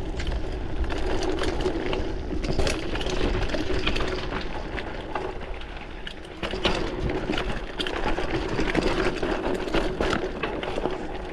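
Mountain bike being ridden on a trail: tyre noise with rattling and clatter from the bike, over a steady buzzing hum. There is a brief lull about six seconds in, then louder clatter.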